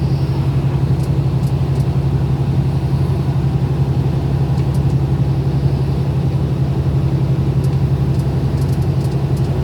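Steady low drone of a car, engine and road noise heard from inside the cabin while driving, with a few faint ticks.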